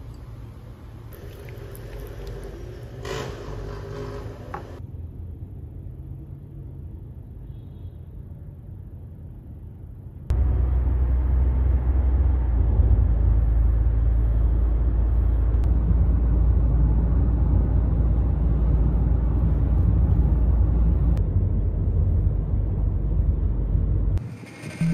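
Almond milk poured from a carton into a glass, then about ten seconds in a loud, steady low rumble of road and engine noise inside a moving car's cabin.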